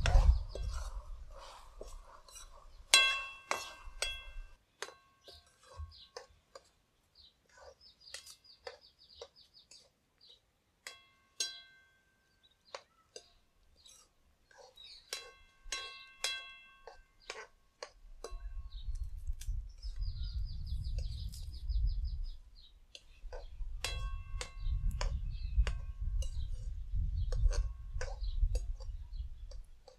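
Steel ladle clinking and scraping against a steel kadai while greens are stirred, in scattered ringing clinks that come in clusters. A bird's high rapid trill sounds three times, and a low rumble runs through much of the second half.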